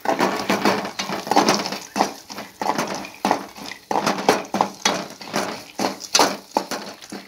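A perforated metal ladle scraping and clanking against a metal kadai while stirring peanuts and roasted gram (pottukadalai) frying in a little oil, making a quick, irregular clatter of knocks.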